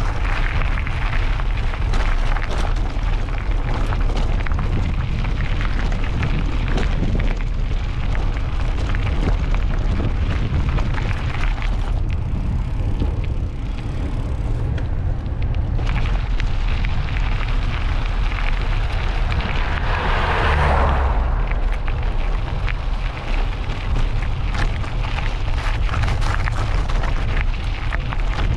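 Wind buffeting the microphone of a camera on a moving bicycle: a steady, low rumbling rush, swelling louder for about a second some twenty seconds in.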